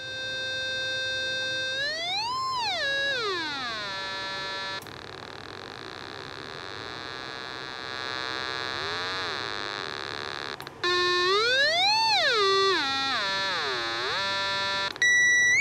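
Electrodynamic loudspeaker, field coil energised and fed through its rewired output transformer, sounding a buzzy test tone that holds steady, glides up and back down, and repeats the sweep. The tone goes fainter and hissy for a few seconds in the middle, with a sharp click at each change.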